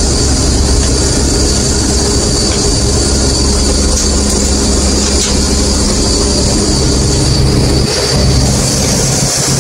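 Bizon combine harvester running at work, heard from inside the cab while it unloads grain through its auger into a trailer: a loud, steady mechanical din with a constant low engine hum.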